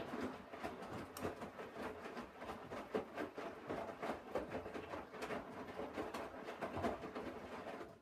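Hoover Dynamic front-loading washing machine tumbling a wet wash load: water sloshing and clothes splashing in the turning drum, with frequent small knocks. The sound stops suddenly at the end as the drum pauses.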